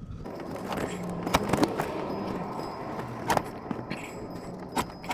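Metal hand tools clinking and rattling, with a few sharp metallic clicks, as sockets and wrenches are handled during work on the power steering pump.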